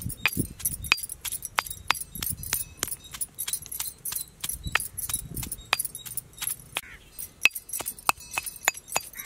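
Metal pestle pounding in a heavy stone mortar: sharp clinking strikes, about three or four a second, as dry red chillies, onion and garlic are crushed into a spice paste.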